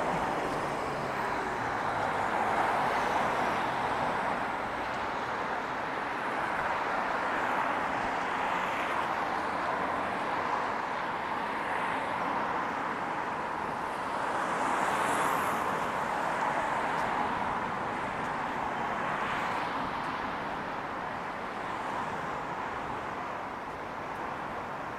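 City street traffic: a steady wash of car and road noise that swells several times as vehicles pass.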